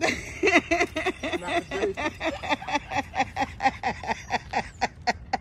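A person's voice in quick, evenly repeated short syllables, about five a second, with no clear words.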